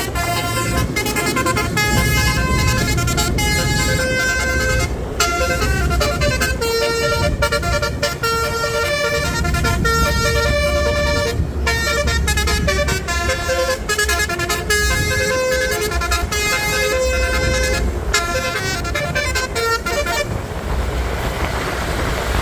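Bus basuri horn, a multi-tone musical air horn, playing a tune of changing notes over the low rumble of the bus engine. The melody stops about twenty seconds in, leaving the engine and a rushing noise.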